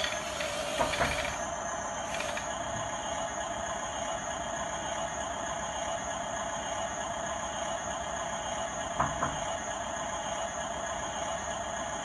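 RC toy bulldozer's electric drive motors and gearboxes whining steadily as it drives back across a tile floor, with two short knocks, about a second in and near nine seconds.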